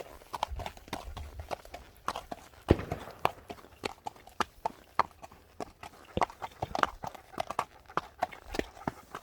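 Footsteps on hard, stony ground: quick, irregular clacks, a few each second, with one louder knock about three seconds in.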